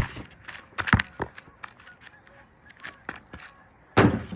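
Geese honking in the background while a basketball bounces sharply a few times, with a louder knock about four seconds in.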